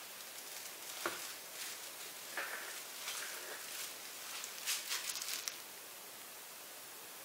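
Handling noise from plastic: light rustles and clicks, with a sharp knock about a second in and a quick cluster of clicks a little before the sound stops, over a steady hiss.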